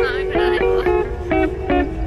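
Background music: a melody of short plucked notes, several a second, over a steady low bass.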